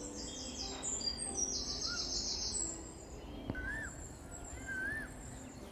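Outdoor birdsong: rapid high chirping trills in the first half, then a few short whistled notes that rise and fall, over a steady low rumble.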